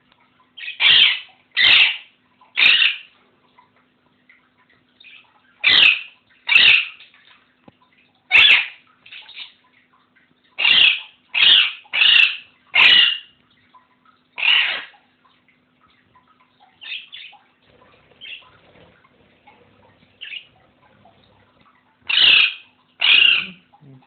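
Alexandrine parakeet squawking: about a dozen loud, short calls in bursts of one to four, with a few softer calls in a lull about two-thirds of the way through.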